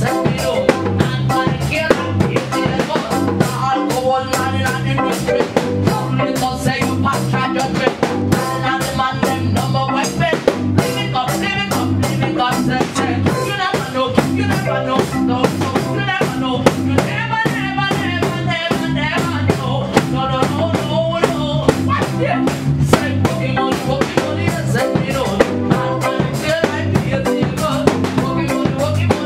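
Live reggae band rehearsing: a drum kit with snare rimshots keeps a steady beat under a moving bass line and electric guitar, while a woman sings lead through a microphone.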